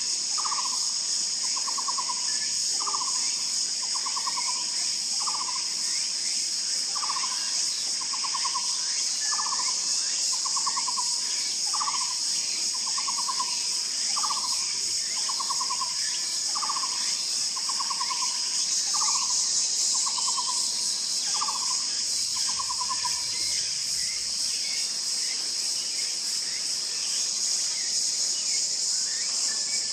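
Taiwan barbet calling: a low, repeated two-part phrase near 1 kHz, a short rattling note followed by a short bent note, about one note a second, which stops about 23 seconds in. Under it runs a steady, high, louder drone of insects.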